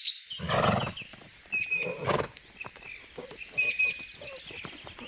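A horse call, twice: once about half a second in and again around two seconds, over faint bird chirping.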